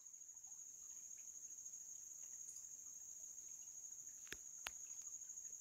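Faint, steady chorus of crickets trilling at one high pitch, with two faint clicks a little over four seconds in.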